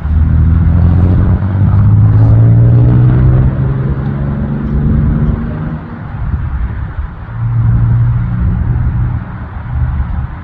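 Jet aircraft passing low overhead on landing approach, its engine noise loud with a low hum and tones sliding in pitch as it goes by, then swelling again briefly later.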